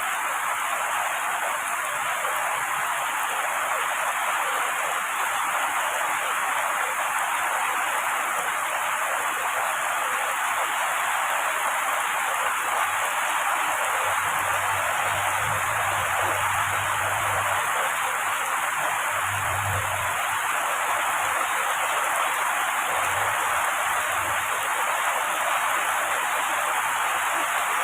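Heavy rain falling steadily on trees, a dense, even hiss of drops. A faint low rumble comes in about halfway through and again briefly a few seconds later.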